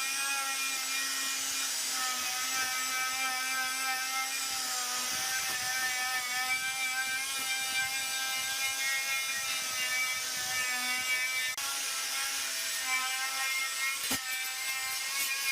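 Small electric power tool running steadily with a whining motor pitch that wavers slightly as it works, over a gritty hiss, with a brief dip about twelve seconds in.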